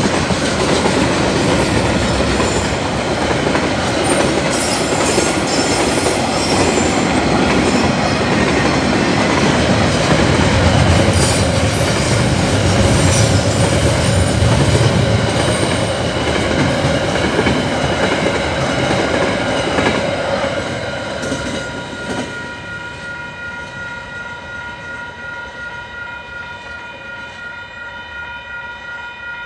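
Freight train wagons rolling through a level crossing, loud and noisy, with wheels clacking over the rail joints. The train noise dies away about three quarters of the way in, leaving the crossing's warning bell ringing steadily.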